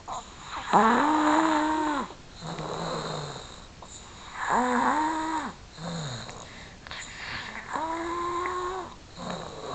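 A sleeping pet snoring: three drawn-out breaths, each carrying a clear held tone, about three seconds apart, with lower, rougher breaths between them.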